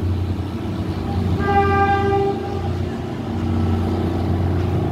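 A PNR train's horn sounds once, a steady single-pitched blast of about a second and a half starting just over a second in, over a steady low rumble.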